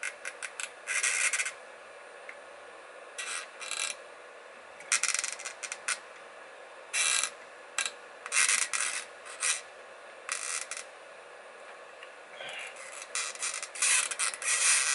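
Metal scraping in short, irregular bursts: a heavy chisel-tip soldering iron and pliers working against a MOSFET's legs on a circuit board while trying to melt all three solder joints at once to free the part. The longest, loudest bursts come past the middle and near the end.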